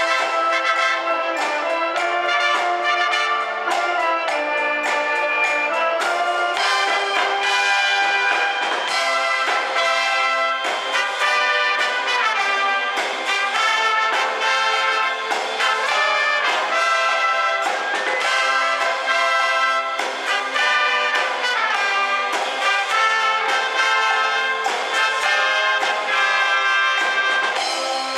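A concert wind band playing continuously, with trumpets and trombones in front of clarinets and saxophones.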